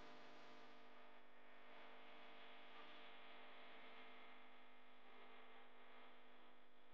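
Faint background music: a sustained chord of steady tones slowly fading.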